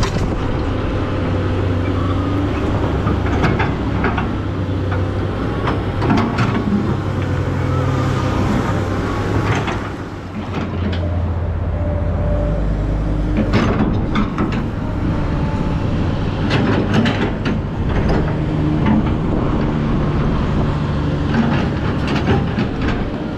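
SANY SY215C crawler excavator's diesel engine running under working load, its note stepping up and down every few seconds as the hydraulics take and release the load, with scattered sharp knocks from the machine.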